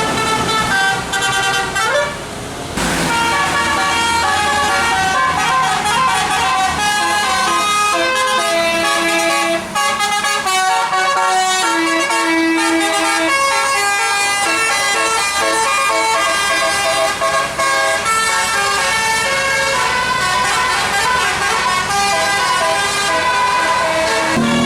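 Bus telolet horn, a set of electric air-horn trumpets, playing a fast melody of several tones at once that step up and down, with a brief break about two and a half seconds in.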